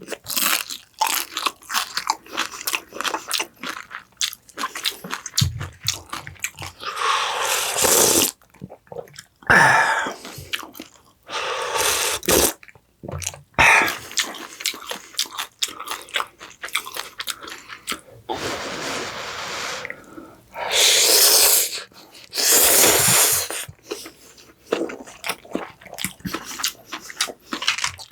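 Close-miked eating: a person's chewing and crunching mouth sounds, dense and clicky, broken by a few longer noisy stretches of about a second each.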